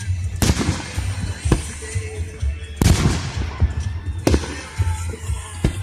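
Fireworks going off: several sharp bangs spaced roughly a second apart, the loudest near the middle, each trailing off in an echoing rumble.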